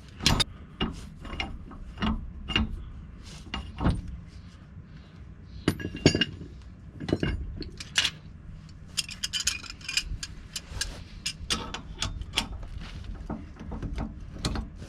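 Irregular metallic clicks, knocks and clinks of hand tools working a U-joint bearing cap out of a Jeep Wrangler TJ's front axle yoke with a C-press, with a cluster of small, bright clinks about nine seconds in.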